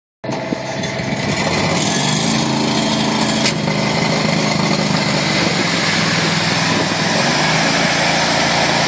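Engine-driven hot-water high-pressure washer running steadily, its spray hissing against a boat hull. A brief sharp click about three and a half seconds in.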